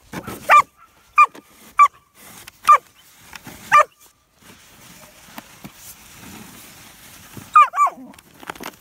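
German Shepherd puppy barking: short, high-pitched barks that drop in pitch, five in the first four seconds, a pause, then two more near the end.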